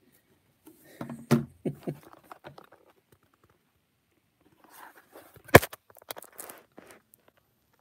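Handling noise of a phone being picked up and moved while filming: a few knocks about a second in, then rustling with one sharp, loud click at about five and a half seconds.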